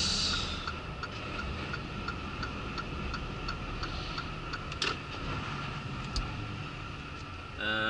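Truck's turn-signal indicator ticking steadily and regularly in the cab, over the low drone of the engine and road noise.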